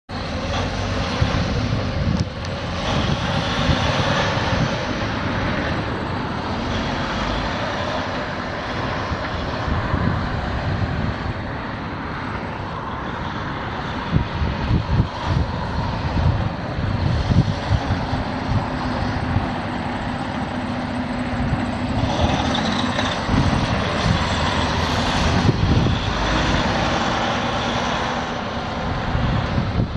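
The Detroit Diesel DD15 inline-six diesel engine of a 2013 Freightliner Cascadia semi truck running steadily, with an uneven low rumble throughout.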